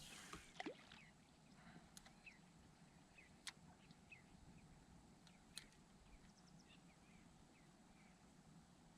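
Near silence, broken by a few sharp clicks spaced one to two seconds apart and faint, short, high chirps in the second half.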